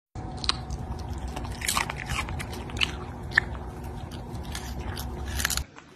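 A small dog biting and chewing a raw carrot: irregular crisp crunches over a low steady hum, stopping abruptly near the end.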